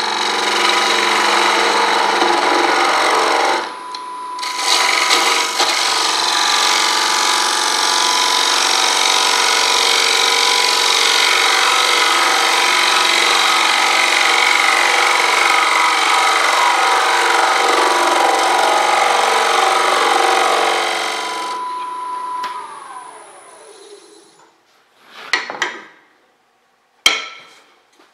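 A wood lathe spins a dry elm bowl while a turning tool cuts away the tenon at its base: a loud, steady cutting hiss of the tool on the wood over the lathe motor's whine, with a brief break about three and a half seconds in. About three-quarters of the way through, the cutting stops and the motor whine falls as the lathe spins down, followed by a few light knocks from handling the bowl.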